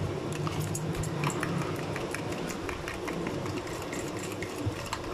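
A metal fork beating thick semolina-and-egg batter in a plastic bowl: rapid, irregular clicks and taps of the fork against the bowl. A low hum lies under it for the first second and a half.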